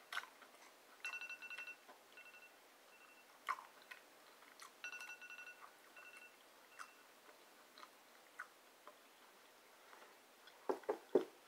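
Smartphone sounding a repeating electronic alert tone: a quick run of beeps followed by two or three separate beeps, repeated a few times and stopping about two-thirds of the way through. Faint chewing and a couple of soft clicks underneath.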